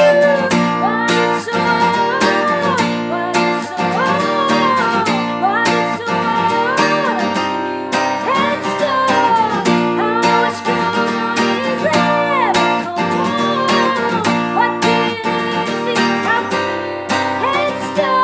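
Acoustic guitar strummed in a steady rhythm, with a melody line that bends up and down over it.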